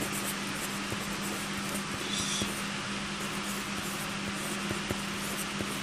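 Bic Matic Grip 0.7 mm mechanical pencil writing on lined paper, with faint scratching strokes and a brief scratchier stroke about two seconds in. These sit under a louder steady hiss with a low hum.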